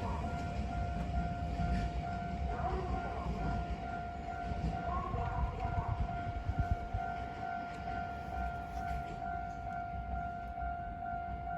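Japanese railroad crossing's electronic warning bell ringing in a steady, evenly pulsed pattern while a train rumbles past.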